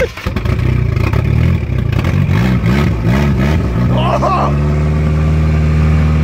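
1989 Nissan Axxess four-cylinder engine, just started after five years of sitting, running with its revs rising and falling in quick surges and then settling into a steady idle about four and a half seconds in. It runs through a straight-piped exhaust with an exhaust manifold leak.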